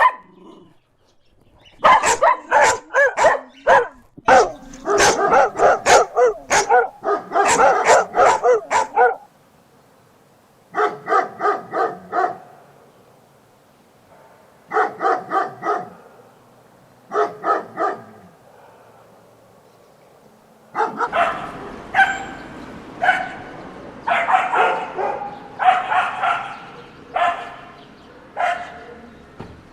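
Dog barking in rapid runs of short barks, with pauses between the groups. From about two-thirds of the way in, the barks come over a steady low background noise.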